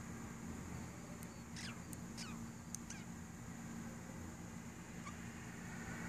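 Budgerigars giving a few short chirps that fall steeply in pitch, with some sharp clicks among them, between about one and three seconds in, over a steady low hum.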